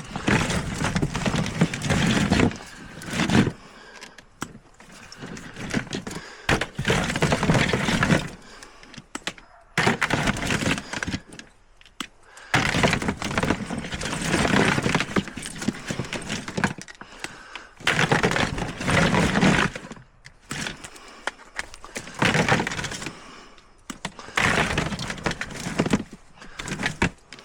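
Repeated bouts of breaking and clattering, about eight in all, each lasting a second or three and full of sharp cracks and knocks, as a piece is broken off scrap.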